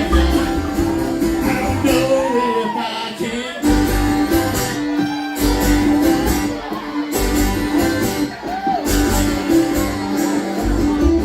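A band performing a song, with acoustic guitar and singing.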